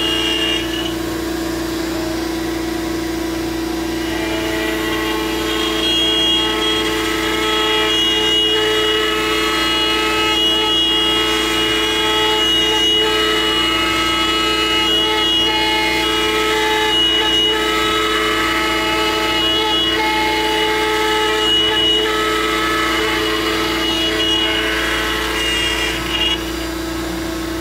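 ShopBot PRS CNC router cutting plywood at 6 inches per second: a loud, steady machine whine over cutting noise, with higher whining tones that come and go as the gantry moves.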